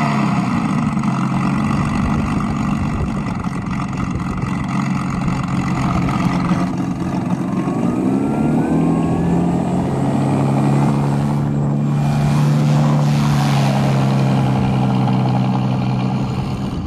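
An RC model Spitfire's onboard sound generator playing a simulated Rolls-Royce Merlin engine through the model's speaker. It runs steadily and rises in pitch, revving up, about seven to nine seconds in.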